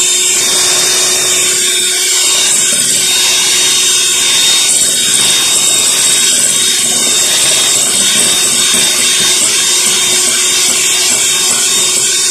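Electric hand mixer running at a steady speed, its wire beaters whisking muffin batter in a glass bowl, with a constant motor whine.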